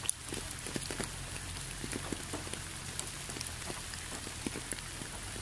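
Steady rain, with many separate drops striking close by over the even hiss and one sharper drop just at the start, over a low steady hum.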